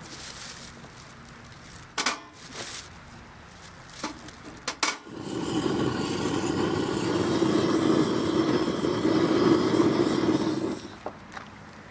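Handheld gas torch blasting a steady roar for about six seconds as it lights firewood in a wood stove, then cut off suddenly. Before it come a few sharp clicks and rustles of handling.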